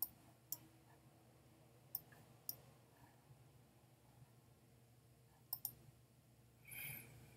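Faint computer mouse clicks, about six, mostly in pairs about half a second apart, with a short soft rush of noise near the end.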